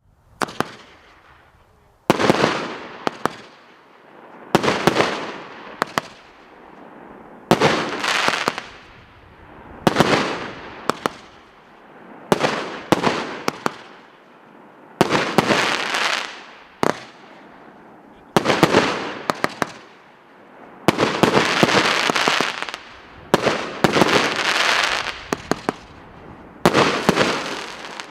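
A 27-shot, 1.2-inch firework cake (Фейерверки России OTC 5135) firing its volleys. A loud cluster of sharp bangs comes about every two and a half seconds. Each cluster is followed by a hissing, crackling tail that dies away before the next.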